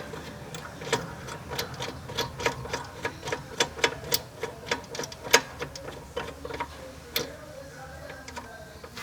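Metal clicking of a hand wrench working loose a brake caliper bracket bolt, a quick irregular run of ticks about three or four a second that thins out near the end.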